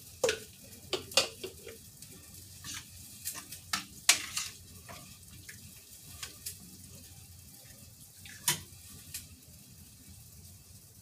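Kitchen clatter: a run of sharp clinks and knocks of utensils against pots and dishes, thick in the first few seconds, then thinning out, with one more knock a little past the middle.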